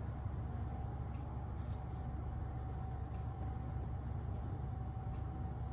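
Steady low hum from a running appliance in the room, with a faint steady tone above it, and a few soft rustles of clothes being handled and folded.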